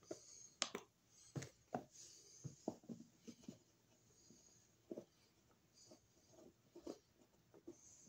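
Faint, scattered clicks and scrapes of a flat-blade screwdriver working the screws and cover plate of an old wall receptacle.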